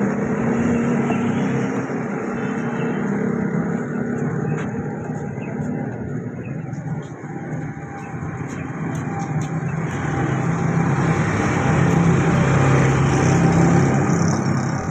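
Street traffic: a motor vehicle's engine running close by. It dips in the middle and swells again near the end.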